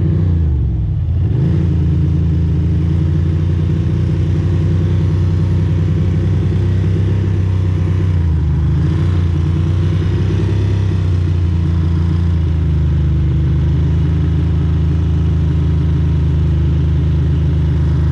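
Ducati Monster's V-twin engine running under the rider at low road speed, a steady low drone. The revs drop and pick up again about a second in and once more about halfway through, as with gear changes.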